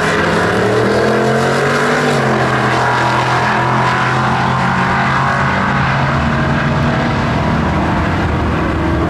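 Two drag cars, a turbocharged C3 Corvette and a classic Ford Mustang, launching and running at full throttle down the strip. The engine note climbs in pitch for about two seconds, drops, then holds and climbs again as the cars pull away.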